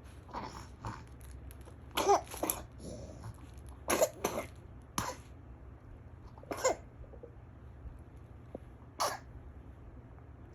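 A young girl with a cold coughing: short coughs, often in pairs, repeated several times with pauses between.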